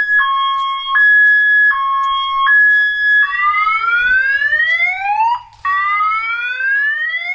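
Electronic siren alarm mounted on a camper trailer, sounding a two-tone hi-lo pattern that swaps between a high and a low note about every three quarters of a second. About three seconds in it switches to rising whoop sweeps, each climbing for about two seconds, heard twice.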